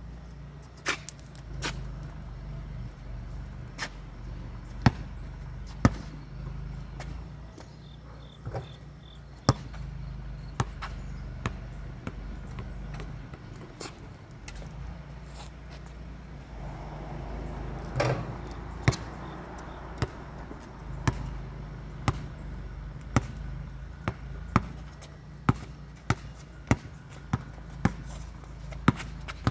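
Repeated sharp impacts, scattered at first, then coming about every half-second in the last few seconds, over a steady low hum.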